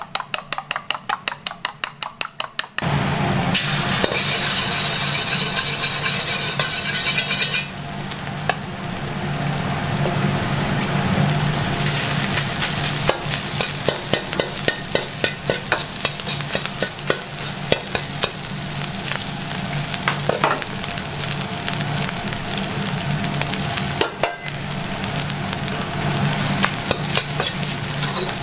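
A spoon beating eggs in a steel bowl with quick, even clicks, then, about three seconds in, a sudden loud sizzle as the egg hits hot oil in a wok. The sizzle eases a little after about eight seconds and goes on steadily under the scrape and clank of a metal ladle stir-frying egg fried rice in the wok.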